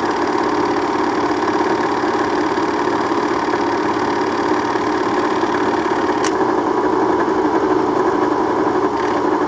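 Bell & Howell Autoload 255A 8mm film projector running without film: its motor and cooling fan give a steady mechanical whir and hum. A single sharp click about six seconds in.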